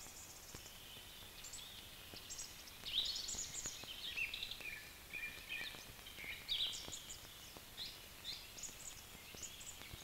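Songbirds chirping: many short, high chirps and twittering calls, some falling in pitch, quiet and scattered throughout.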